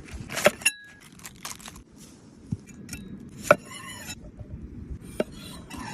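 Cooking gear being handled: a few sharp clinks and knocks of utensils or dishes, one with a brief ringing tone about half a second in, between patches of light rustling.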